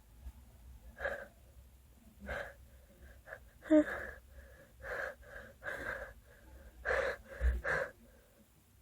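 A person's repeated short, wheezy gasping in-breaths, the build-up of a sneeze that won't come out. The sharpest and loudest catch of breath comes about four seconds in.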